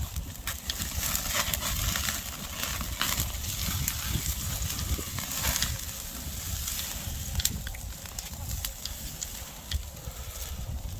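Oak-wood campfire crackling, with many sharp pops scattered throughout, over a steady low rumble of wind on the microphone.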